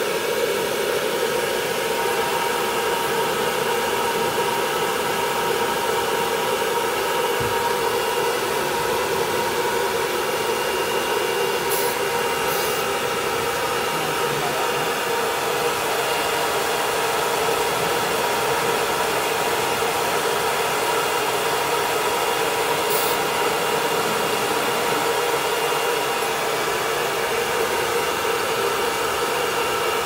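Hair dryer blowing steadily on a wet toy poodle's coat: an even rushing hum throughout, with a couple of brief faint clicks.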